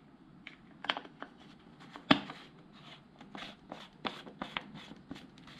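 Short plastic clicks and taps as a hand screws the cap onto a motorcycle's rear brake fluid reservoir, with a dozen or so irregular ticks and one louder click about two seconds in.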